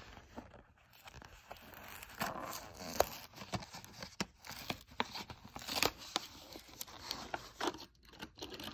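Hot Wheels blister pack being torn open by hand: cardboard card ripping and plastic bubble crackling, with a few sharp clicks as it comes apart.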